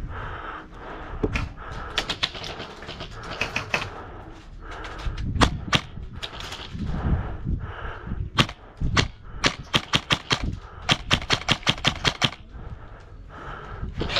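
Airsoft guns firing: single shots and short bursts, then a steady string of rapid shots at about six a second in the last few seconds.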